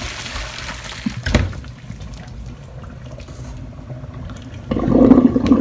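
Boiling water and blanched komatsuna poured from a steel pot into a plastic strainer in a stainless steel sink, the water splashing and draining away. A sharp knock comes a little over a second in, and a louder burst of noise near the end.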